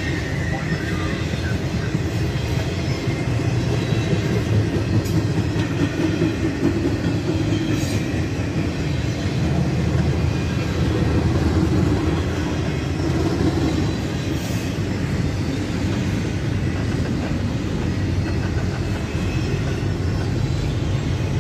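Double-stack intermodal freight cars rolling past: a steady rumble of steel wheels on rail.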